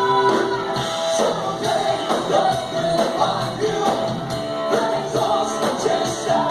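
Live rock and roll band playing a song with a singer's vocal over a steady drum beat.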